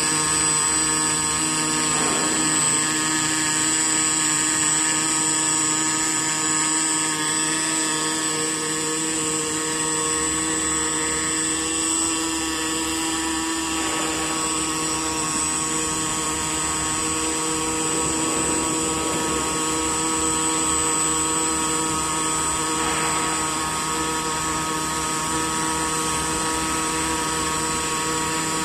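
Pulsed arc welding running continuously: a steady buzzing arc with several fixed high tones that hold level throughout.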